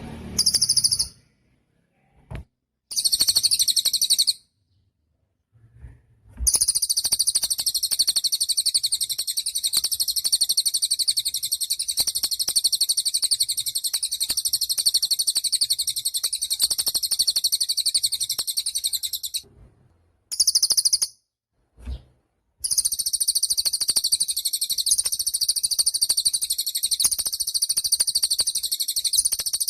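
Cililin songbird singing a very high-pitched, rapid chattering song. It comes in short bursts at first, then runs in long unbroken stretches, with a brief break about two-thirds of the way through. A few short low thumps fall in the gaps.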